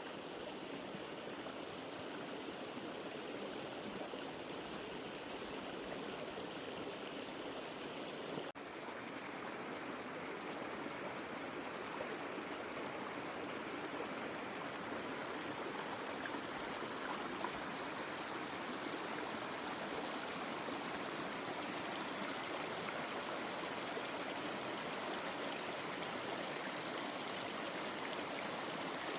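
Steady rushing noise of running water, with a brief break about eight and a half seconds in.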